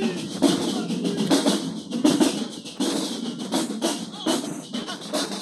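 Marching band drumline playing a cadence, snare and bass drums striking in a driving rhythm.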